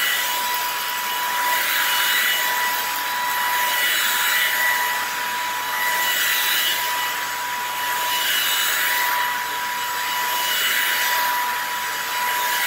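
Ryobi 18V ONE+ cordless stick vacuum running on carpet, a steady high motor whine with a rushing hiss that swells and eases about every two seconds as the head is pushed back and forth, picking up cat litter, hair and dust.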